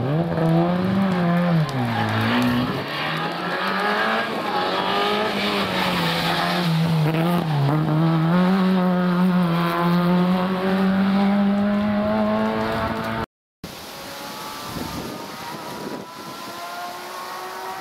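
Historic rally car's engine revving hard on a special stage, its pitch rising and falling with gear changes and lifts. After a cut about 13 seconds in, another rally car's engine is heard more faintly, its pitch climbing steadily as it accelerates.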